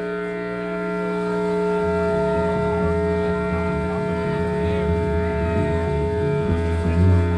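Live rock band playing an instrumental passage: a sustained droning chord holds steady, and a bass guitar line of changing low notes comes in about two seconds in.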